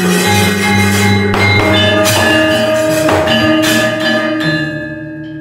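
Javanese gamelan playing, its metal keys and gongs ringing with sustained tones over a few sharp struck strokes. The music dies away near the end.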